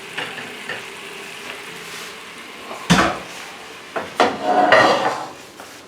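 Kitchen dish and pan noises: a single sharp knock of a pan or plate about three seconds in, followed by irregular scraping and clinking as the risotto is served onto the plate.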